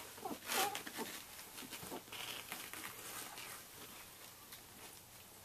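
Twelve-day-old Samoyed puppies giving a few short squeaks and whimpers in the first second, then soft rustling of bedding as they crawl and nuzzle.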